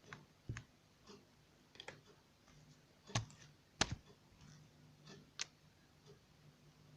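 Scattered light clicks and taps, about a dozen at uneven spacing, with two louder sharp ones a little after three seconds and just before four seconds in. Underneath is a faint steady low hum.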